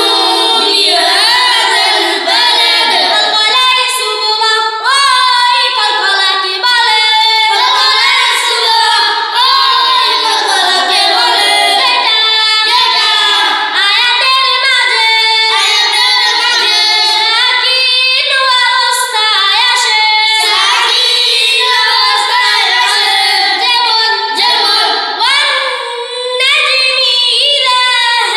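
Children's high voices chanting in a sing-song melody, reciting Quran-reading (tajweed) rules for the heavy Arabic letters and the kinds of qalqalah.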